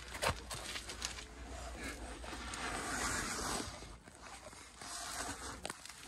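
Uneven rustling and scraping of clothing and gear rubbing against rock as a hiker squeezes through a narrow rock passage, with a few small knocks. It eases briefly about two-thirds of the way through.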